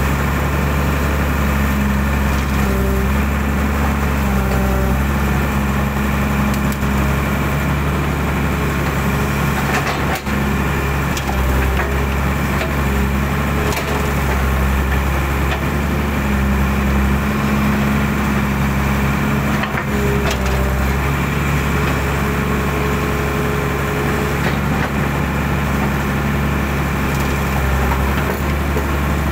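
Hydraulic excavator's diesel engine running steadily as it digs out a drainage ditch, with a higher tone from the working hydraulics coming and going and a couple of faint knocks.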